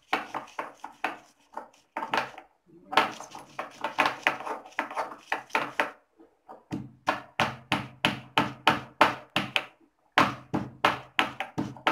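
Stone pestle pounding in a stone mortar, crushing roasted asafoetida, fenugreek and roasted gram to powder: rapid knocks, about four a second, in runs with short pauses.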